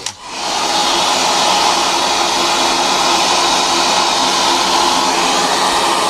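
Handheld hair dryer switched on, spinning up over about half a second and then blowing steadily at full speed, with a faint motor hum under the rush of air.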